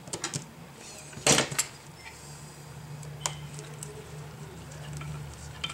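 Small sharp clicks and taps of a precision screwdriver and gloved fingers on an opened iPad mini while a tiny screw is driven in, loudest as two clicks about a second in. A steady low hum runs under the second half.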